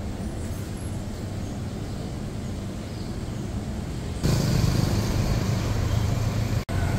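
Steady low rumble of town street traffic. It steps up louder about four seconds in and cuts out for an instant near the end.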